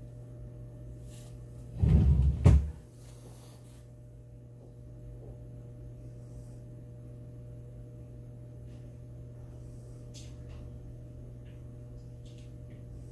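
A heavy thud about two seconds in, followed half a second later by a sharp knock, over a steady low hum.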